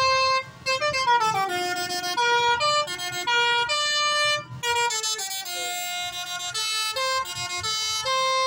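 Bus 'telolet basuri' multi-tone air horn playing a tune: quick runs of stepped horn notes going up and down, several notes a second, over a low engine rumble.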